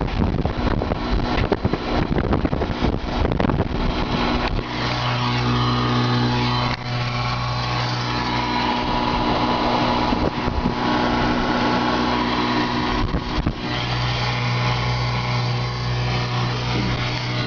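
Strong wind buffeting the microphone with rain noise for the first few seconds, then a car's engine running with a steady hum, heard from inside the cabin while wind and rain keep rushing outside.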